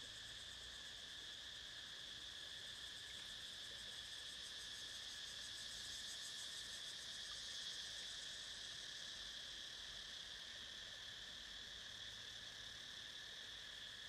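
Steady, high-pitched chorus of insects from the riverside vegetation, unbroken throughout.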